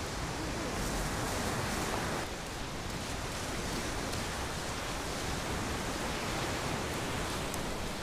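Black Sea surf washing onto a pebble beach: a steady rushing noise.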